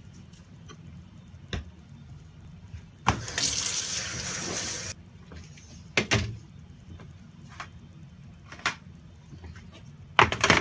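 Water running from a tap for about two seconds, a steady hiss that starts and stops abruptly. Scattered sharp knocks and clicks come before and after it.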